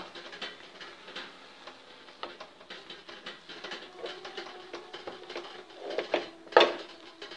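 Wooden spatula stirring and scraping thick ragi and rice flour dough around a ceramic-coated pan, a run of irregular scrapes and knocks, loudest about six seconds in. The flour is being worked into boiling jaggery syrup so it cooks without lumps.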